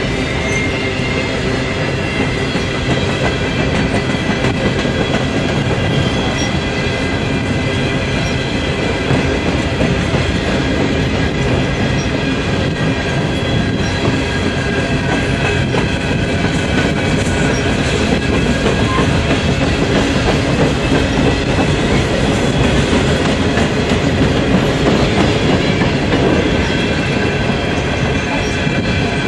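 Empty coal hopper cars of a long freight train rolling past, a steady rumble and clickety-clack of steel wheels over the rail, with a few thin, steady high ringing tones from the wheels over it.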